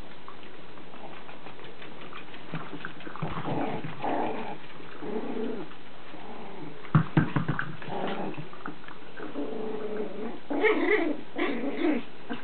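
Chihuahua puppy growling in play as she worries a toy, in short bouts that are loudest near the end, with a quick run of sharp knocks about seven seconds in.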